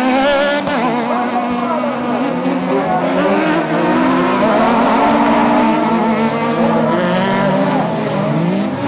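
Several autocross buggies racing on a dirt track. Their engine notes overlap and keep rising and falling as the cars accelerate, shift and back off for the bend.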